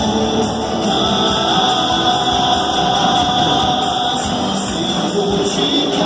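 Live band playing a song with singing through the PA during a sound check, with a steady beat about twice a second.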